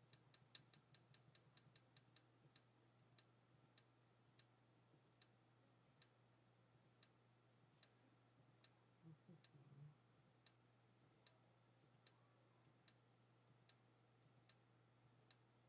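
Faint, short clicks, one for each step as a menu list is scrolled down. They come quickly at first, about five a second for two seconds, then slow to roughly one every two-thirds of a second.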